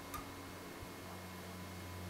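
Hook pick and tension wrench working the pin tumblers of a TESA T60 euro cylinder: one sharp metallic click just after the start and a softer knock just under a second in, over a steady low hum.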